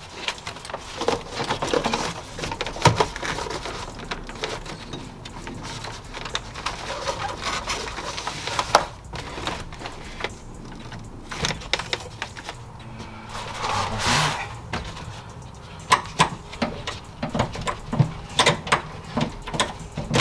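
Scattered clicks, knocks and rustling from hands working loose wiring and plastic parts under a car's dashboard, with a longer scraping rustle about two-thirds of the way through and a quicker run of sharp clicks near the end.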